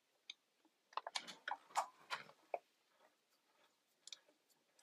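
Small metal clicks and short scrapes from bolts and an Allen key being worked into a treadmill motor's metal mounting bracket. There is a single click at the start, a quick run of clicks about a second in, and a few more near the end.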